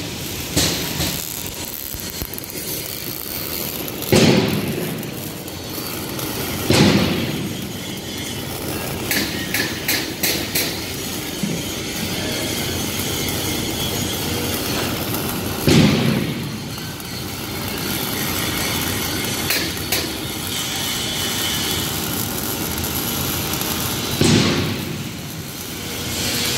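MIG welding on steel plate with a Fimer TM500 welder: a steady crackle and hiss from the arc, with four loud thumps echoing through the metal shop.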